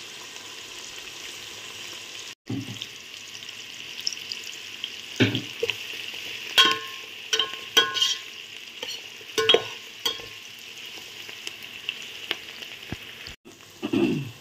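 Sliced shallots, onions and curry leaves sizzling in hot oil in a metal pot, with a steady frying hiss. A metal spatula scrapes and knocks against the pot a number of times in the middle as the onions are stirred.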